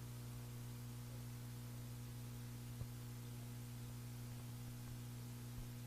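Steady low electrical hum with faint hiss, a single faint click about halfway through.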